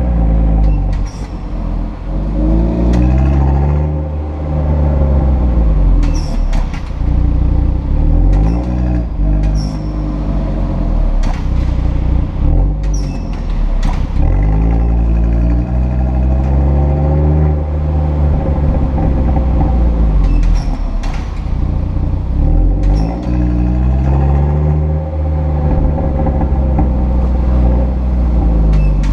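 Audi RS3 sedan's five-cylinder engine through the RS sport exhaust, its pitch repeatedly rising and falling. About ten short, sharp high squeaks are mixed in, which the owner puts down to squeaking exhaust flaps.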